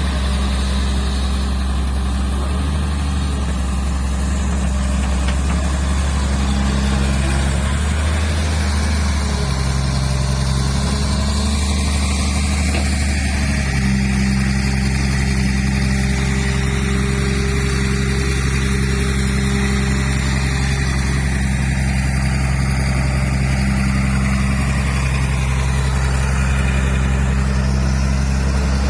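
Kobelco SK07 excavator's diesel engine running steadily while digging, its low note shifting slightly every few seconds.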